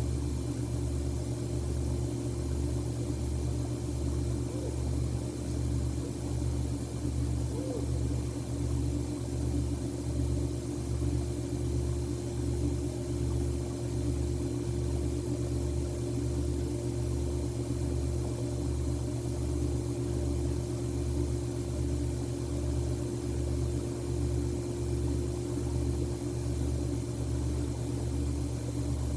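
Steady low hum with a slow, even throb, joined by a couple of faint steady higher tones; nothing else stands out.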